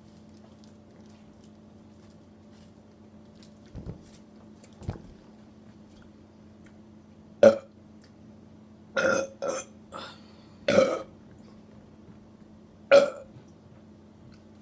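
People burping after gulping soda: a run of about six short burps, beginning about seven seconds in, the first and last the loudest. Two faint low thumps come a few seconds before them.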